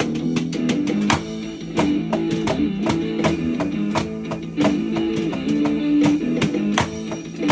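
Guitar-driven backing music with many sharp, irregular drum strikes from a Simmons Titan 50 electronic drum kit being played along to it.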